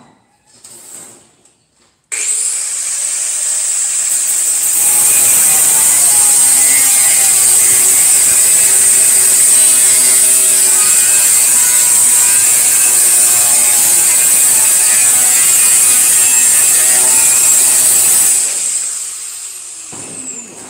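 Angle grinder with a cut-off disc, switched on about two seconds in and slicing through sheet metal with a steady high whine. It is switched off near the end and spins down, its pitch falling.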